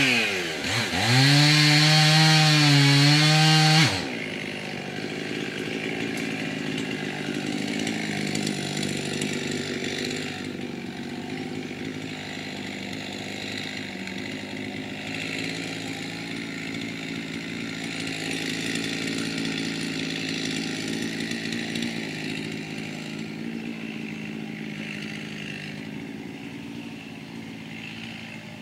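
Husqvarna chainsaw running loud at high revs, its pitch sagging and recovering as it bites into wood, then cutting off suddenly about four seconds in. A quieter, steady engine sound carries on after that.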